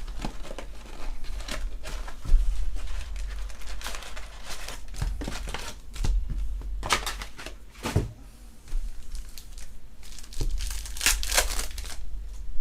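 Plastic packaging of trading-card packs crinkling and tearing, in irregular rustles with a few louder rips, as a box is opened and packs are ripped.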